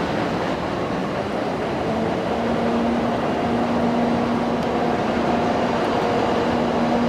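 EF64 electric locomotive pulling a container freight train away from a station, a steady rumble of wheels on rails with a constant motor hum.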